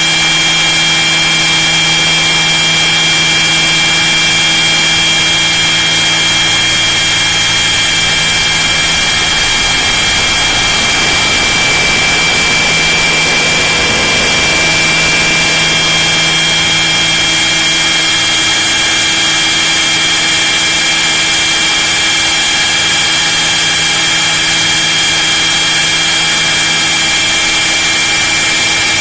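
Radio-controlled scale model helicopter in flight, heard from inside its cabin: a steady high-pitched whine from the motor and rotor drive over a rushing noise. The lower hum wavers briefly about halfway through as the model banks.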